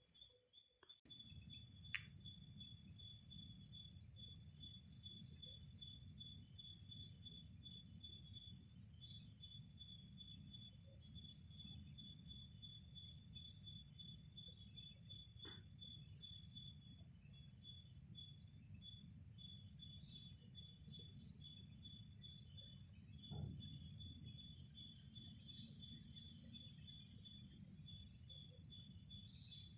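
Night insect chorus: a steady high-pitched cricket buzz with a fast-pulsing cricket trill beneath it and scattered short chirps, over a low steady rumble. It cuts in suddenly about a second in.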